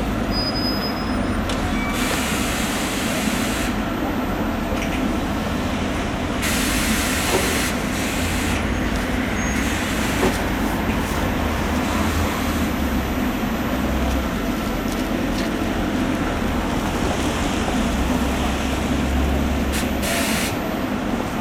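Bombardier TVR rubber-tyred guided tram standing at a stop, its onboard equipment giving a steady hum, with several sharp hisses of compressed air being let out: about two seconds in, around six seconds in, and briefly near the end.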